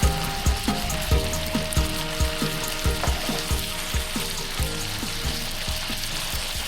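Background music with a steady low beat and sustained notes, over an even hiss.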